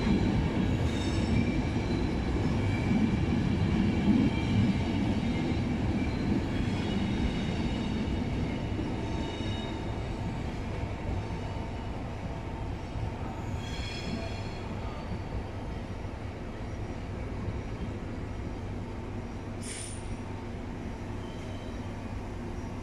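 Passenger train of coaches rolling slowly along the station tracks: a low rumble with squealing wheels over the first ten seconds, fading as it goes. A short squeal comes about fourteen seconds in and a brief high squeal near the end.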